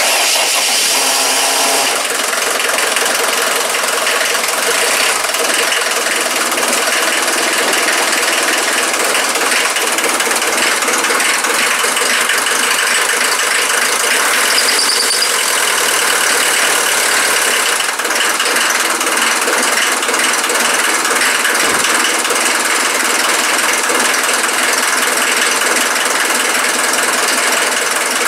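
Mercedes-Benz W123 with its engine running and warming up and the cabin heater blower on, a loud, steady rushing noise that begins abruptly.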